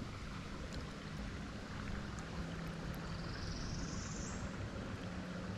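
Steady rush of flowing creek water, with a faint high buzz for about a second a little past halfway.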